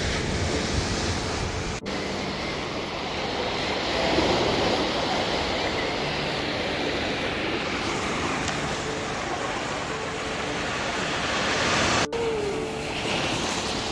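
Ocean surf breaking and washing up a sandy beach: a steady rush of water that drops out briefly twice, about two seconds in and near the end.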